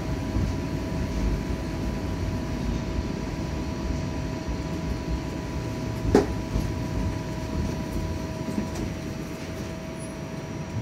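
Running noise heard inside a moving TTC streetcar: steady rolling rumble with a faint steady whine, and a single sharp clunk about six seconds in.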